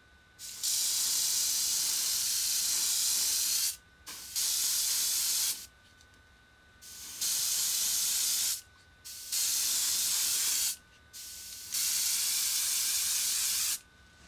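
Airbrush spraying red Spectraflame paint onto a Hot Wheels Redline die-cast casting, applying a filler coat. It hisses in five bursts of about one to three seconds, with short pauses between, the first burst the longest.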